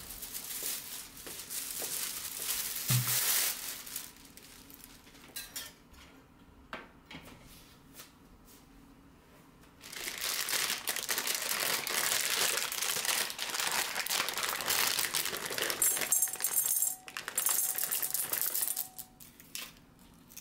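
Plastic bag crinkling and rustling as it is handled, in two spells, the longer one starting about halfway in, over soft background music.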